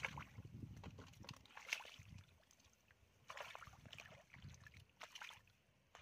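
Faint sloshing and squelching of hands and feet working in shallow muddy rice-field water, in a few short irregular bursts over a low rumble.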